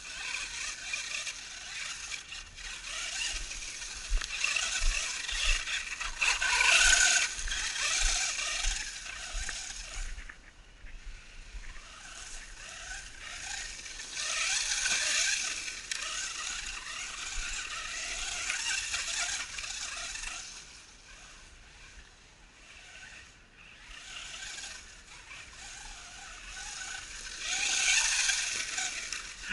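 Brushed electric motor and gear train of an FS Racing Marauder RC buggy running on a 3S LiPo, whining in repeated bursts as it speeds up and backs off over rough ground.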